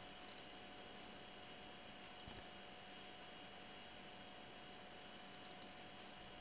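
Faint computer mouse clicks over near-silent room hiss: one click near the start, a quick group of three or four about two seconds in, and another small group near the end.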